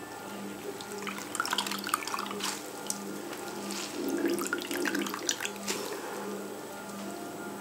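Hands rubbing and sloshing grated potato shreds in a glass bowl of water, washing them: irregular splashes and swishes, busiest in the middle.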